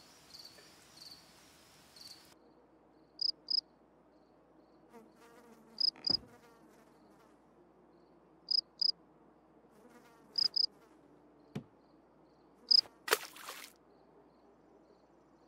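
Cricket chirps, the stock cartoon cue for an awkward silence: short, high double chirps repeating every two to three seconds over a faint low hum. A short burst of noise comes near the end.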